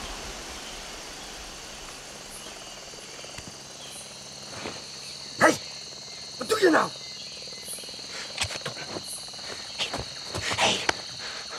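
Steady high chirring of insects in woodland, with a sharp crack about halfway through (the loudest sound), a short falling sound just after it, and a few rustling knocks near the end.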